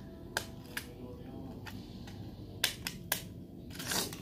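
A handful of sharp clicks and knocks from small hard objects being handled, spaced irregularly, with a short rustle swelling near the end.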